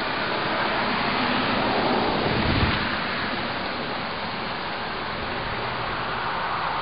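A car going past: a swell of tyre and engine noise that peaks about two and a half seconds in and then fades.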